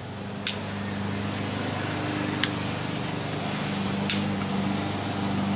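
Lawn mower engine running steadily, growing a little louder, with four sharp clicks from a lighter wand being triggered to light charcoal briquettes.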